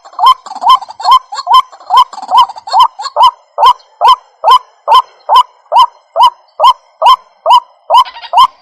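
White-breasted waterhen (ruak-ruak) calling: a regular series of short upward-sliding notes, about two to three a second, the kind of call used as a lure for trapping the bird.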